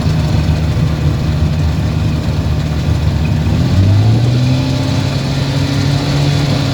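Carburetted engine running steadily, its speed rising a little about four seconds in and holding there. The owner finds it running lean, from restricted fuel flow and a broken pick-up tube in one carburettor's fuel bowl.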